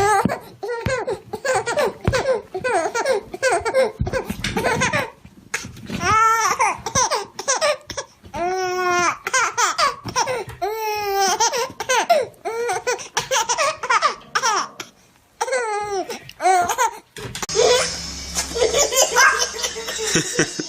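A baby laughing hard in repeated high peals, each burst breaking off and starting again. About 17 seconds in the sound changes to a noisier recording with a steady low hum underneath.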